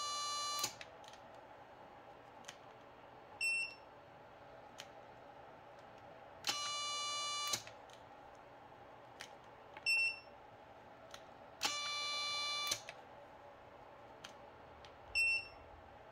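Futaba A700 digital servo straining against a force gauge in three bursts of about a second each, a steady high-pitched electric whine as it stalls under load during peak-torque testing. Each burst is followed a few seconds later by a short, higher electronic beep from the test equipment.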